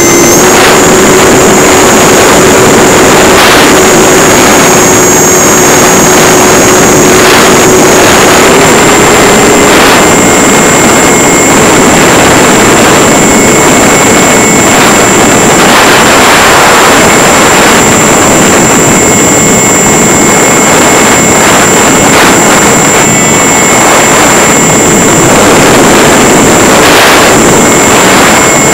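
Electric motor and propeller of an EasyStar RC plane, heard from a camera strapped to its belly in flight: a loud, steady whine over heavy wind rush. The whine steps up slightly in pitch a few times in the first ten seconds, then holds steady.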